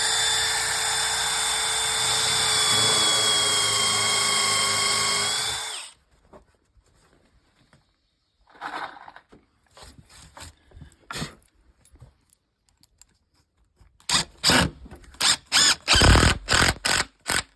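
Power drill running steadily for about six seconds with a countersink drill bit, its whine dipping a little in pitch as the bit bites into the wood, then cutting off. Faint clicks follow, and near the end about ten sharp knocks.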